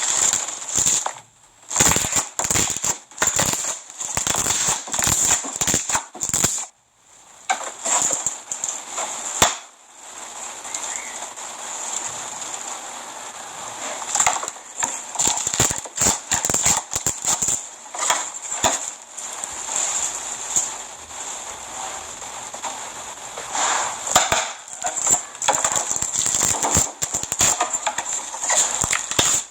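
Slime being pressed by hand, giving rapid runs of sharp pops and crackles, with a short pause about seven seconds in.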